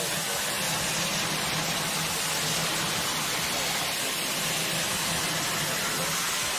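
Steady wash of crowd cheering and celebration noise, an even roar with no single voice standing out.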